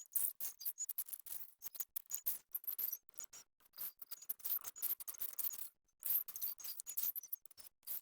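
Small all-metal RC excavator working in dirt and stones: a rapid, irregular run of clicks, scrapes and crunches from the bucket and metal parts, with short high squeaks now and then.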